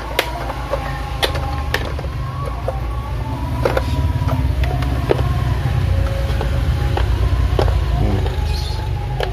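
Several sharp clicks and creaks of plastic as the lid of an electric rice cooker is pried apart with a small tool, over a steady low rumble.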